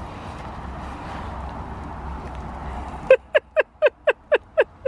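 Steady outdoor background noise with a low rumble. About three seconds in, a quick run of about eight short, loud calls follows, roughly four a second, each call dipping in pitch.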